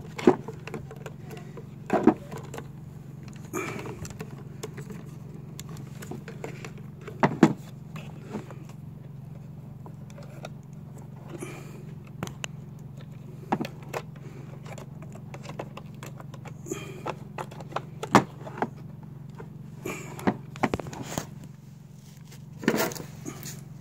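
Scattered clicks and knocks of a plastic fuel pump module and its parts being handled and fitted together on a plastic toolbox lid, over a steady low hum.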